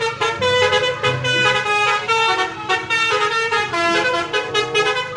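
Tour bus's musical multi-tone horn playing a quick melody, the notes changing several times a second.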